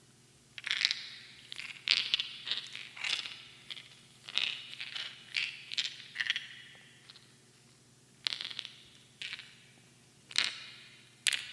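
Small mineral stones clinking and rattling against each other in about a dozen short handfuls, each a cluster of light, bright clicks that ring briefly afterward.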